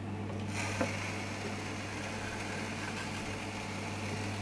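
Electric aluminium birdseed (canary seed) cleaning machine running with a steady hum while dirty seed is fed into its hopper. A hiss joins in about half a second in and holds steady.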